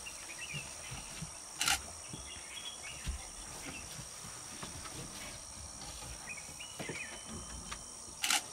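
Forest ambience: a steady, high-pitched insect drone, with faint bird chirps and two short, harsh noises, one about two seconds in and one near the end.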